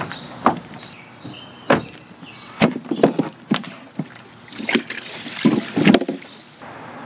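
A run of sharp plastic knocks and clunks from a hard-sided picnic cooler being handled: set down, its lid opened, then tipped over on the pavement, with a car door handled at the start.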